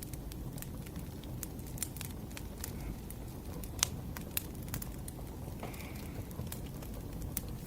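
Wood fire burning: firewood crackling with irregular sharp snaps over a low, steady rumble of flames. One snap stands out louder about four seconds in.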